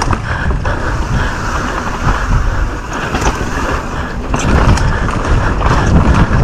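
Downhill mountain bike descending at speed: continuous wind rush on the microphone, with the bike rattling and scattered sharp knocks over rough trail.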